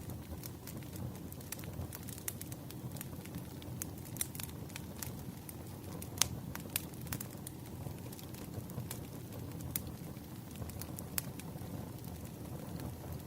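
Firewood burning, crackling with sharp, irregular pops and snaps over a low steady rumble; the loudest pop comes about six seconds in.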